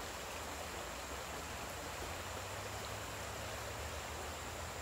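Shallow stream rushing over rocks in a channel running off a dam: a steady, even water noise.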